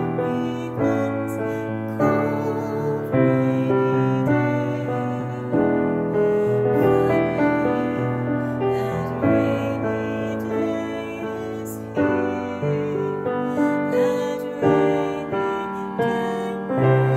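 Grand piano playing a slow jazz ballad in sustained chords, with a woman singing the melody over it, her held notes wavering with vibrato.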